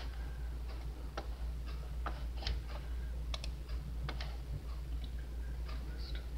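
A computer mouse clicking a dozen or so times at irregular intervals, short light clicks over a steady low hum.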